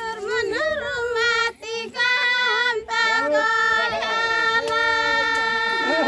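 Group of women singing a Santali dong song in high voices, with long held notes and a short break about a second and a half in.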